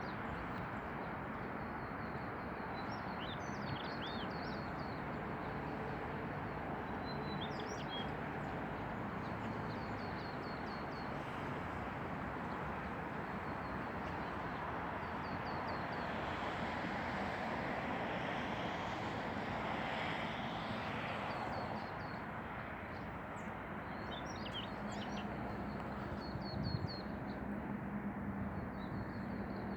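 Small birds chirping in short runs of quick, high notes every few seconds, over a steady rushing background noise.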